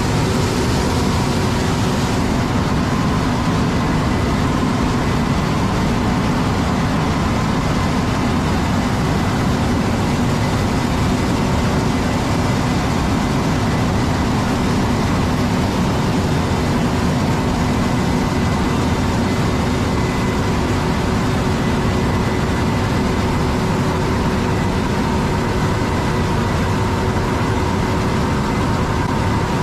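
John Deere S680 combine harvester running steadily while harvesting corn: a constant drone of engine and machinery, with several steady whining tones over it.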